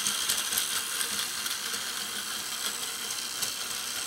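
Battery-powered micro toy train running on plastic track: its small electric motor and plastic gears whir steadily, with light clicks.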